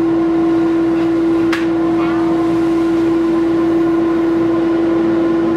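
Workshop dust collector running with a steady hum and rush of air, its hose held to a child's head to suck up loose hair.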